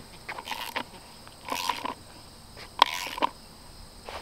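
Socket ratchet clicking in three short bursts as its handle swings back and forth, tightening the nut on an anchor bolt through a 6x6 sill plate.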